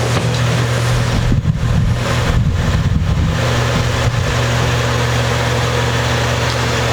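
A steady low electrical hum with a buzzy edge, overlaid from about one to four seconds in by irregular knocks and rustles of something being handled close to the microphone.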